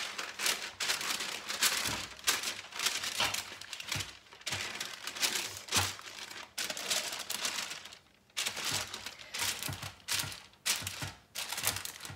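Baking paper crinkling and rustling in irregular bursts as it is spread and smoothed by hand over a baking tray, with a short lull about two-thirds of the way through.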